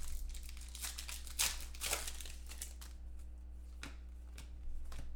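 Foil wrapper of a 2014 Contenders football card pack crinkling and tearing as the pack is opened, strongest around the first two seconds, followed by a few light clicks of cards being handled. A steady low hum runs underneath.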